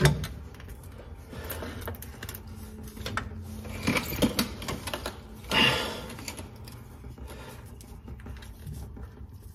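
Scattered metal clicks, knocks and scraping of hand tools working under the truck at the oil change, with two short louder rasping noises about four and six seconds in.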